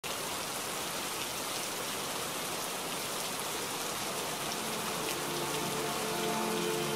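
Steady rain falling, an even patter with no pauses. About five seconds in, soft sustained music notes begin to fade in under it.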